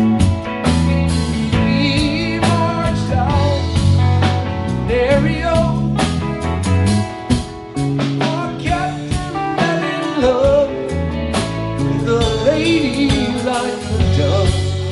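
Live band playing a song on electric guitars, bass guitar, drum kit and electric keyboard, with a wavering lead melody over steady bass and drums.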